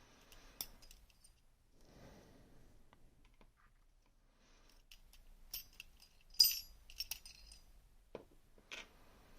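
Small metal parts of a disassembled Rosengrens disc-detainer lock clicking and clinking as they are handled: a scatter of light taps, the sharpest about six seconds in.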